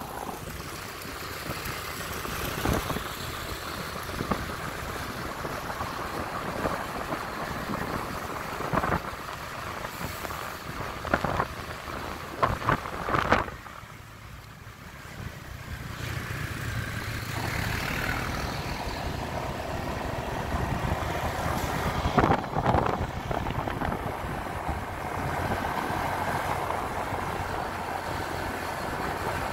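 Small motorbike running along a road, its engine and riding noise steady, with a few sharp knocks about twelve seconds in and a brief drop in level just after.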